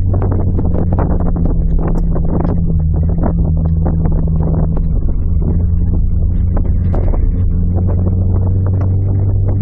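An engine running steadily with a low hum, with frequent knocks and rattles over it.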